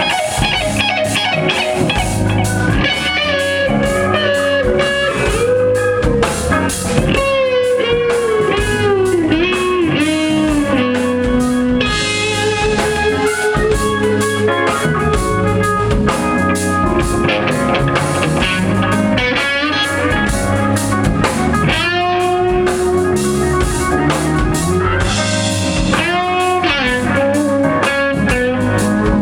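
Live blues-rock band playing an instrumental stretch: a lead electric guitar solo with bent, sliding and wavering notes over drums and bass guitar.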